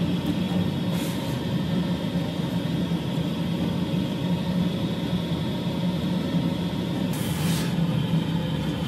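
A steady low mechanical hum with a faint high whine over it, like a fan motor running without a break. A short hiss comes about a second in, and a longer one near the end.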